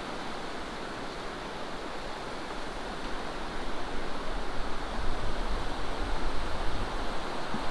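River water rushing steadily over a stony bed. A low, uneven rumble joins in about four seconds in and fades near the end.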